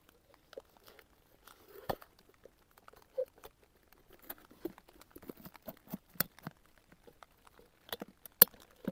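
A camping cook pot and stove parts handled and packed together by hand: scattered light clicks, knocks and scrapes, and a sharp click near the end as the lid goes on.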